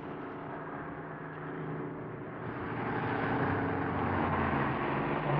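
Radio-drama sound effect of a truck engine running steadily on the road, growing louder about halfway through as a truck closes in to overtake.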